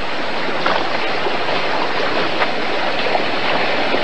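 Creek water rushing steadily.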